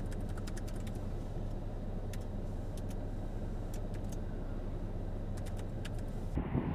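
A vehicle engine idling with a steady low hum, with scattered faint ticks over it. Near the end it cuts abruptly to louder wind buffeting the microphone.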